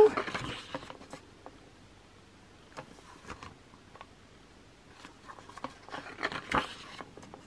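Paper pages of a photobook being turned by hand: soft rustles and light slaps of paper. They come in the first second and again in a cluster about two-thirds of the way through, with a few faint ticks between.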